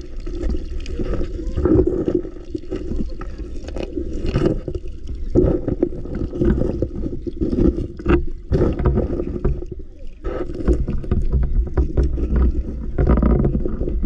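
Flowing river water heard through an underwater camera: a loud, muffled low rushing with frequent short knocks and taps.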